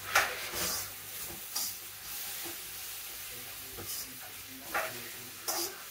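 Chicken pieces and onion sizzling in oil in a frying pan, steady and hissing, with a utensil scraping and knocking against the pan about five times as they are stirred.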